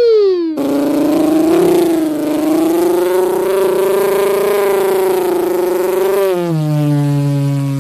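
A mouth-made sound effect: a pitch glides down, then a long, buzzy, raspy drone holds steady for about six seconds before dropping lower near the end.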